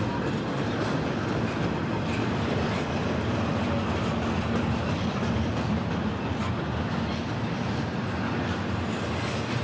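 Double-stack container train's well cars rolling past, a steady rumble of steel wheels on the rails with a few faint clicks.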